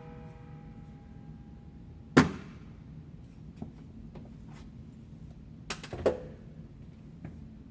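A single loud sharp crack about two seconds in, then two smaller cracks close together near six seconds, with a few faint clicks between.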